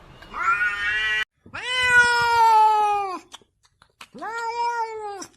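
Cat meowing: three long, drawn-out meows, the first cut off abruptly, the middle one the longest and loudest.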